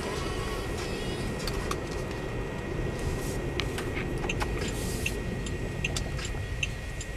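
Pontiac G6 GT heard from inside the cabin, rolling slowly: a steady low engine and road rumble. Light ticks come through the rumble, more often and more regularly in the second half.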